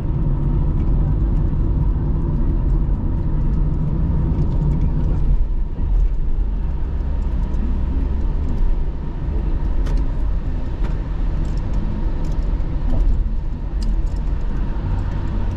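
Car's engine and road noise heard from inside the cabin while driving at a steady pace: a continuous low hum and rumble. The engine's low tone changes about five seconds in.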